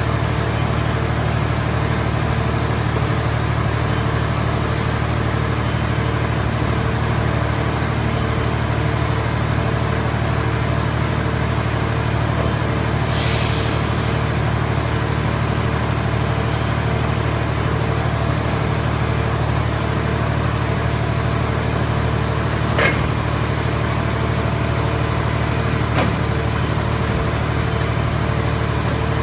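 Car scrap baler machine's engine or hydraulic power unit running with a steady drone. A brief hiss comes about 13 seconds in, and two sharp clicks come later on.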